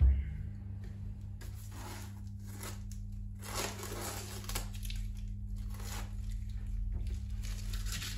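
A dull thump, then a few separate scraping, rubbing strokes as a leather shoe's sole is worked with a hand tool, over a steady low hum.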